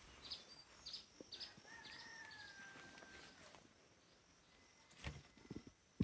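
Faint birdsong over quiet rural ambience: a quick run of short high chirps, then a thin held whistle that falls slightly in pitch. A couple of soft low thumps near the end.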